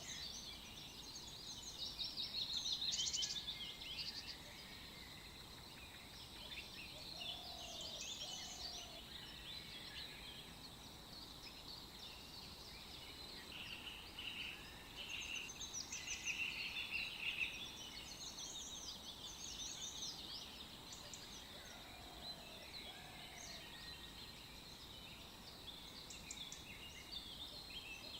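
Birds singing, with many short chirps and trills throughout. A lower two-note call comes back every six to seven seconds.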